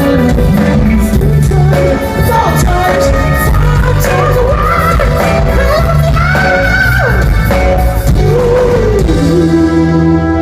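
Rock band playing loud live, with a lead line of sliding, bending notes over electric bass and drums. About nine seconds in, the drumming stops and a held chord rings on.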